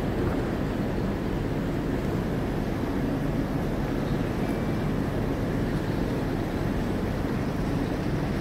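Steady low rumble of ambient noise in a large train-station hall, with no distinct events standing out.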